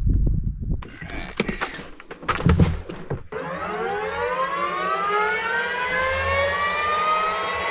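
Helicopter turbine engine starting: after a few seconds of knocks and clicks, a whine of several tones rises in pitch from about three seconds in and levels off as the engine spools up.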